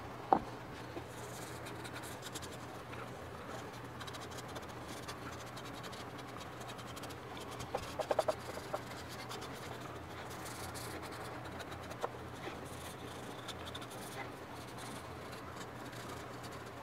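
Faint rubbing and scratching as an oil finish is worked by hand into cherry wood, over the steady hum of a shop fan. A sharp knock sounds just after the start, and a short run of light clicks comes about eight seconds in.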